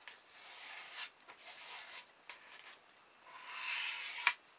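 Fingers rubbing and pressing along the folded edge of a polystyrene foam pizza tray, a dry rasping hiss in three strokes, pressing down the hot-glued seam. A sharp click near the end is the loudest sound.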